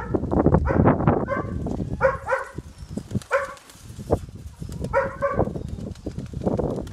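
A dog barking repeatedly in short barks, some in quick pairs, over heavy wind rumble buffeting the microphone.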